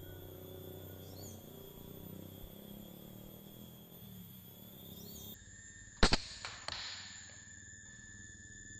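A Sharp Tiger pump air rifle fires a single shot about six seconds in: a sharp crack with a short ringing tail, then a smaller knock about half a second later. Before and after the shot there is a faint steady high buzz of insects.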